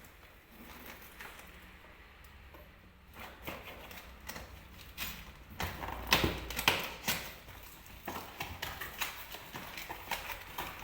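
Packaging and small items being handled by hand: scattered clicks, taps and knocks with some rustling, busiest and loudest about halfway through.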